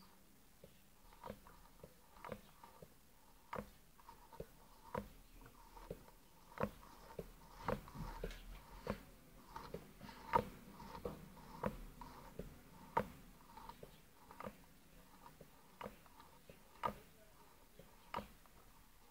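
Homemade coffee-tin Stirling engine's moving parts clicking over and over, about two light clicks a second at a fairly even pace, some louder than others.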